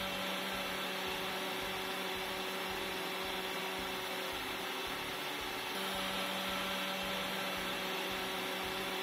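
Electric mixer grinder running steadily, grinding grated coconut to extract coconut milk. Its hum changes briefly about halfway through, then carries on.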